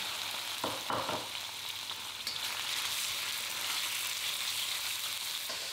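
Chicken pieces sizzling in hot oil in a wok, a steady high hiss. A couple of short knocks come about a second in as the chicken is stirred with a spatula.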